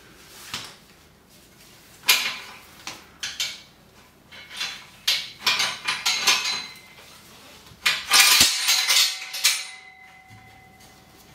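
Metal chain and fastener hardware on a training-rack pole clinking and rattling in irregular bursts as a flat strap fastener is undone and rethreaded, with a short metallic ring after the last clatter.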